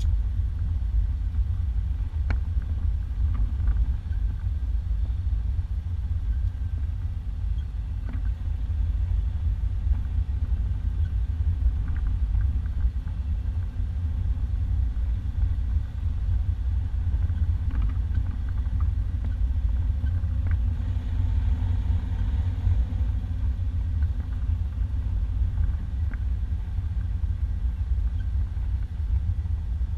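1991 Isuzu Trooper driving along a sandy dirt two-track, heard from inside the cab: a steady low rumble of engine and tyres, with a few faint knocks and rattles.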